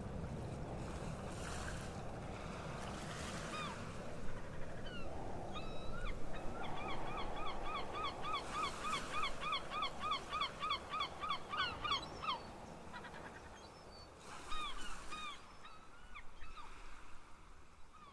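Birds calling in honking, goose-like notes: a few single calls, then a fast run of about four calls a second lasting some five seconds, then a few more calls near the end. Under them a low rumble of wind and surf fades away after the middle.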